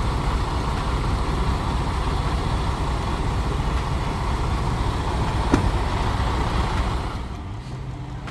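Day cab semi truck's diesel engine running steadily, with a single sharp click about five and a half seconds in. The sound drops quieter about seven seconds in.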